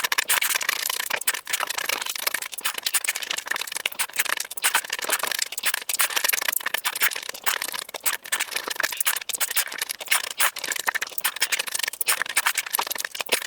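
Close-miked eating: chewing and crunching food, a dense, unbroken run of crackly clicks.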